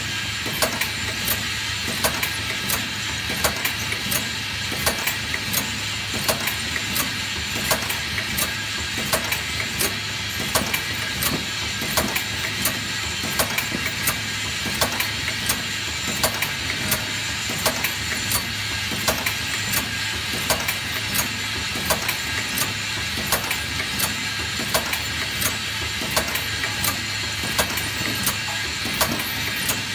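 Eye drop bottle filling and capping machine running: a steady motor hum and hiss with regular sharp clicking, a couple of clicks a second, as the bottles are indexed through the machine.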